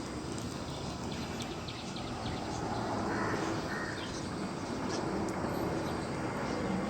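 Outdoor ambience: a steady low rumble of wind and handling noise, with a few short bird calls about three seconds in.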